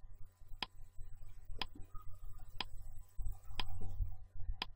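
Countdown timer ticking once a second, five sharp ticks in a row, with a low rumble partway through.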